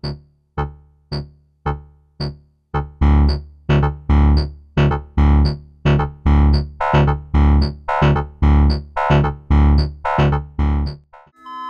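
Modular synthesizer notes from Make Noise PoliMATHS functions opening QXG low-pass gates: a steady run of pitched, plucked tones with a deep low end, each note striking and then dying away, about two a second. The first few notes are short and quiet; from about three seconds in they ring longer and louder, until a stop near the end.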